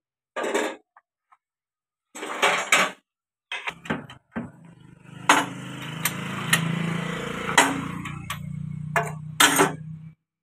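Hand tools and loose metal parts clanking against a tractor's steel body while bolts are taken out: a few separate clanks first, then from about four seconds a steady low hum and rasping noise broken by several sharp metal knocks.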